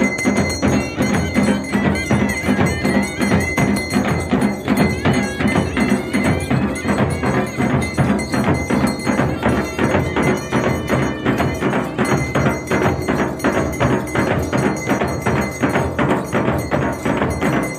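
Traditional Pahari devta band music: steady, rapid drumming with ringing bells over it, played for a deity's palanquin procession.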